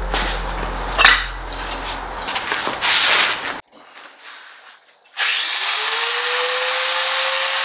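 Handheld power tool grinding, with scraping and two sharp knocks in the first half, a sudden break to quiet just past the middle, then the tool's motor spinning up and running steadily as it cuts.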